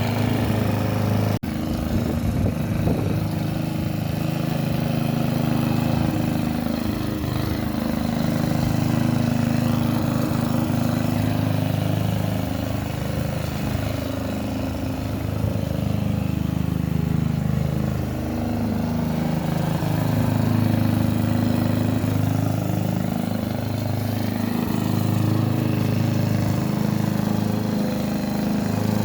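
Hyundai HY145V petrol lawn mower engine running steadily while mowing; its note dips and recovers briefly several times. There is a momentary break in the sound about a second and a half in.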